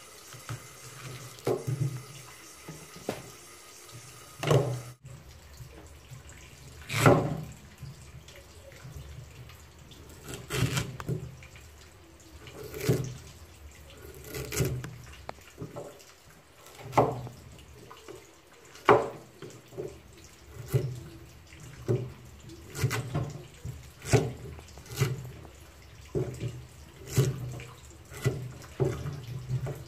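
A cleaver chopping a peeled taro corm into chunks on a thick round wooden chopping board, the blade knocking against the wood every one to two seconds. In the first few seconds, fainter strokes of a small knife paring the taro stalk.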